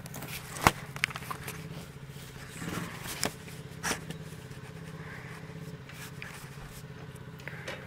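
Coolster 125cc ATV's single-cylinder four-stroke engine idling steadily across the yard, with footsteps on gravel and a few sharp clicks and knocks, the loudest just under a second in.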